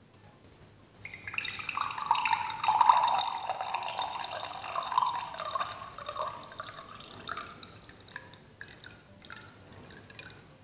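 Pepsi poured from a can into a glass: a splashing pour starting about a second in, loudest for the next few seconds, then tapering into the cola fizzing and crackling in the glass.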